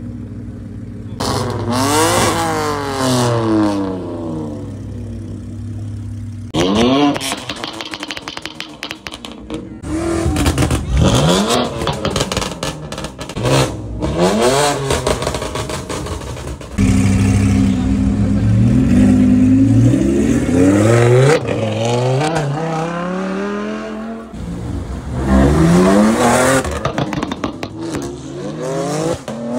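Supercar engines, a Lamborghini Huracán among them, idling and then revving hard. The pitch climbs and drops again and again as the cars accelerate, across several short clips that cut abruptly from one to the next.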